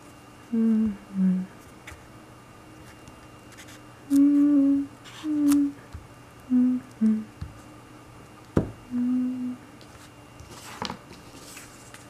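A person humming a slow tune in short held notes, separated by pauses. A sharp tap comes about two-thirds of the way through, and a brief scratchy rustle near the end.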